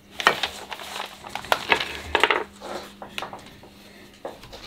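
Handling noise from flat-pack furniture assembly: paper instruction sheets rustling and wooden table parts knocking and clattering, in several short bursts.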